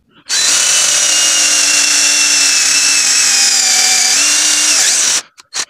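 Hard Point 12-volt mini cordless drill running with a 2 mm bit, boring a hole into a block of wood. The motor whine starts about a third of a second in, sags slightly under load, steps up in pitch about four seconds in, and stops a little after five seconds, followed by a couple of brief blips.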